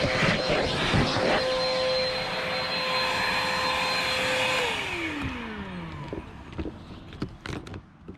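Vacuum cleaner running and sucking up grit that crackles through the nozzle. It then settles to a steady whine, is switched off about four and a half seconds in, and its motor winds down with a falling whine. A few light knocks follow near the end.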